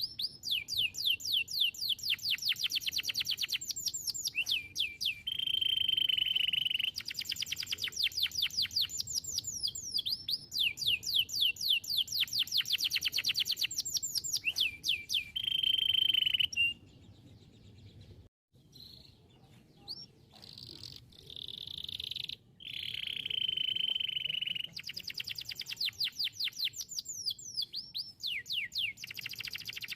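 Domestic canary singing: fast trills of rapidly repeated, downward-sweeping notes alternating with a held lower note, phrase after phrase. The song drops away for a few seconds just past the middle, then resumes.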